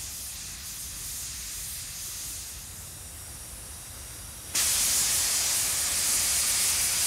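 Steam hissing steadily from a saddle-tank locomotive's boiler, in steam at about 137 psi during its first steam test. About four and a half seconds in, a valve on top of the boiler is opened and steam blows off with a sudden, much louder hiss that carries on steadily.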